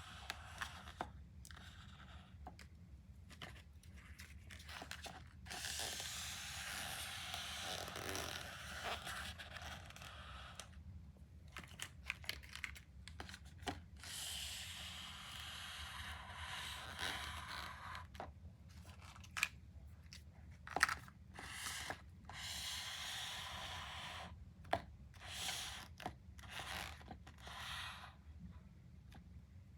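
Plastic candy wrappers being torn open and crinkled, in stretches of rustling broken by scattered sharp clicks and snaps of packaging.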